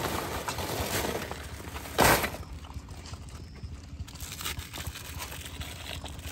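Plastic bags and wrapping crinkling and rustling while charcoal is handled on river stones, with one short loud clatter about two seconds in.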